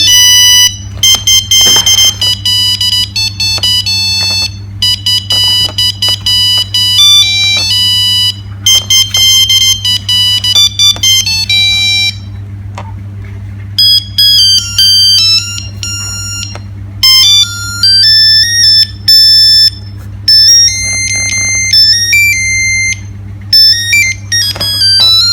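Nokia 3610 mobile phone playing ringtone melodies as electronic beep tones, one note at a time. One tune stops about 12 seconds in and another begins after a short pause. A low steady hum runs underneath.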